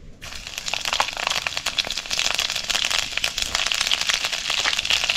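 Hot cooking oil sizzling and crackling in a wok: a dense, steady patter of tiny pops that starts a moment in.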